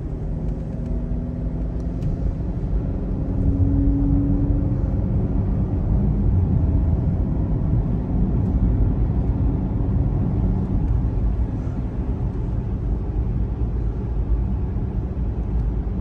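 Road and engine noise inside a moving car's cabin: a steady low rumble with a faint hum, growing louder about three and a half seconds in.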